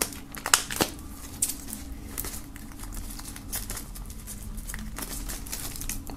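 Hands handling a plastic CD case and a cardboard album slipcase: irregular light clicks and taps, the sharpest in the first second, with crinkling of packaging.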